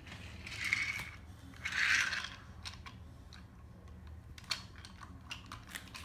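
Wooden toy trains and track pieces being handled, giving light scattered clicks and clacks, with two short hissy rustles about a second and two seconds in.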